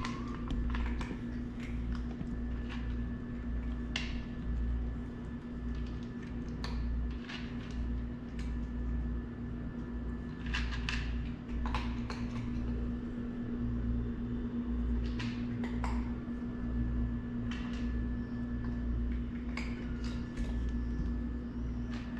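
A steady low machine hum, with scattered light clicks and taps.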